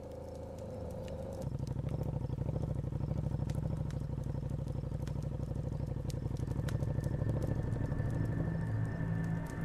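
Motorcycle engine idling, a low, fast, even pulsing note that grows stronger about a second and a half in and then holds steady, with scattered sharp crackles from a small wood fire.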